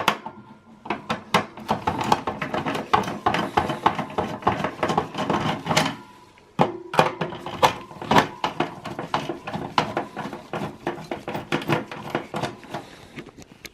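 Rapid clicking and scraping of a screwdriver working the screws out of a PC's plastic CPU fan shroud, with a brief pause about six seconds in.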